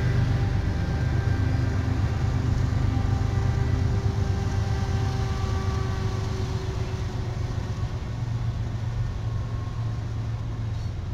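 Several diesel-electric freight locomotives running as they pass in a line: a steady low engine drone with a few faint steady tones above it, easing off slightly near the end as the last locomotive goes by.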